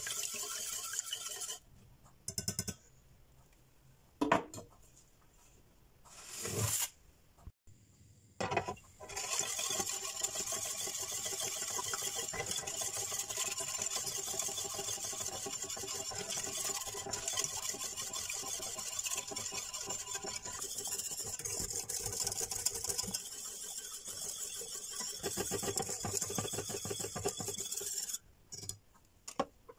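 Wire whisk beating lemon cream in a small stainless steel saucepan: a fast, steady scraping and swishing of the wires against the pan as the cream cooks and thickens. The whisking breaks off for several seconds near the start, with a few short knocks, then resumes and runs steadily until near the end.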